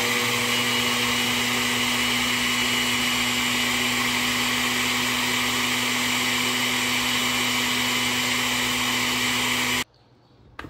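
Countertop blender with a glass jar running at a steady speed, pureeing pepper, onion, ginger and garlic with water. It cuts off suddenly about a second before the end.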